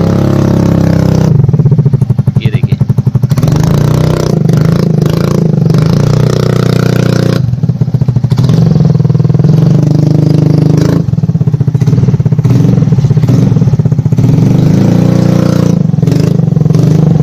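Yamaha Ray ZR 125 scooter's single-cylinder engine running loud through an aftermarket Akrapovic carbon slip-on exhaust. It eases off about two seconds in and again around seven seconds in, then picks back up.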